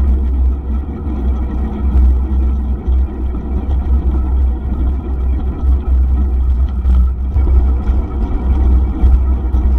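Wind buffeting the microphone of a camera on a moving bicycle: a heavy, uneven low rumble that swells and dips throughout. Under it is the hiss of the bike's tyres rolling on rough asphalt.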